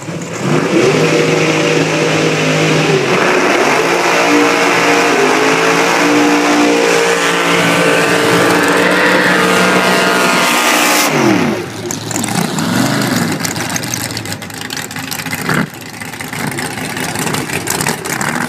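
Two drag-race cars launching from the start line and accelerating hard down the quarter-mile, engines climbing in pitch with several gear shifts. About eleven seconds in the pitch drops and the sound fades as they run away down the strip, leaving quieter engine noise.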